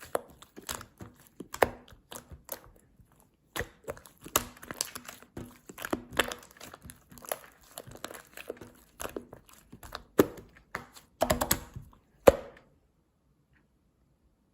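Fluffy white shaving-foam slime being squished and stretched by hand, making irregular sticky clicks, pops and crackles. The sounds stop about twelve seconds in, right after the loudest pop.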